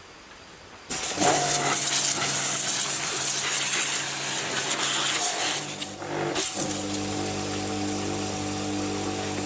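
An engine starts abruptly about a second in and runs hard with a loud hiss. About six seconds in it falters briefly, then settles into a steady, even running at a lower pitch.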